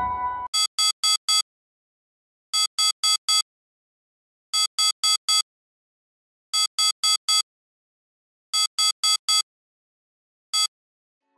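Samsung Galaxy S24 Ultra's alarm beeping in groups of four quick beeps, one group every two seconds, five times over. A single beep follows near the end and the alarm stops as it is dismissed.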